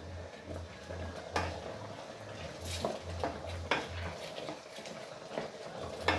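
A spatula stirring chunks of pork in a thick sauce in a nonstick electric cooking pot, working in freshly added brown sugar, with irregular scrapes and light taps against the pot.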